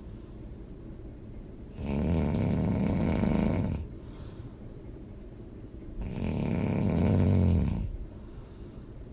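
A person snoring loudly: two long snores of about two seconds each, roughly four seconds apart, with quieter breathing between them.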